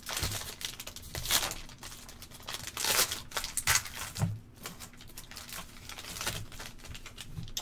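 Foil wrapper of a Topps Tier One baseball card pack crinkling and tearing as it is pulled open by hand. It comes as a series of short rustles, the loudest about a second and a half in and again about three seconds in.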